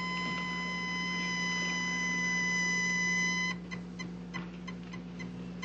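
Heart-monitor flatline: one steady high beep tone, slowly growing louder, the monitor's sign that the heart has stopped. It cuts off suddenly about three and a half seconds in, and faint quick ticks follow, about four or five a second.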